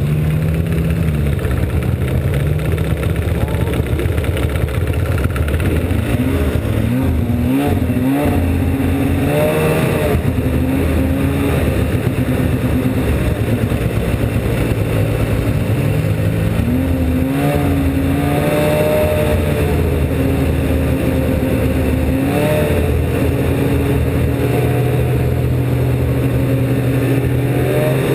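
Snowmobile engine running close up while riding along a trail, its pitch rising and falling with the throttle: it climbs in a few surges about six to ten seconds in and again around sixteen to nineteen seconds, then holds steady.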